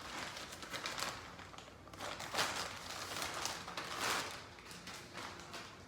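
A shipping package being opened by hand: packaging rustling and tearing in several irregular scratchy swishes.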